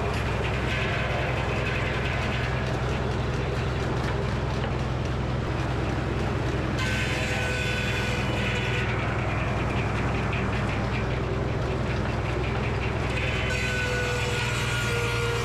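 Frick sawmill running steadily under power, its circular saw blade cutting black walnut about seven seconds in and again near the end, each cut adding a brighter, whining rasp over the steady drive hum.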